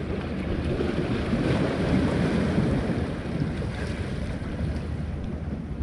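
Wind buffeting the microphone over the wash of sea waves against a concrete tetrapod breakwater, swelling a little about two seconds in.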